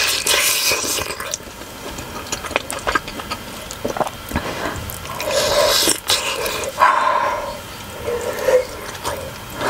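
Close-miked mouth sounds of eating a large steamed pork momo: a bite into the soft dumpling, then wet chewing and slurping. Short huffs and hums break in from a mouth burned by the steaming-hot filling, about five, seven and eight and a half seconds in.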